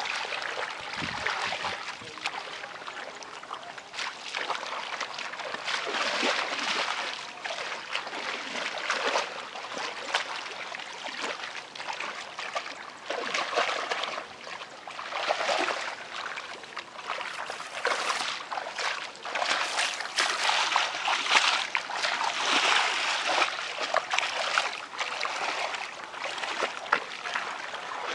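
Shallow muddy water splashing and sloshing irregularly as someone wades through it and gropes in the mud by hand, with many small sharp splashes.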